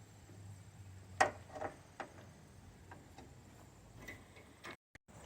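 A few light clicks and taps, the loudest about a second in, over a low steady hum; the sound drops out completely for a moment near the end.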